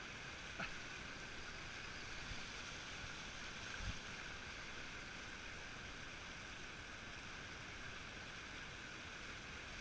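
Steady rushing of a fast river current over riffles, with a soft knock about four seconds in.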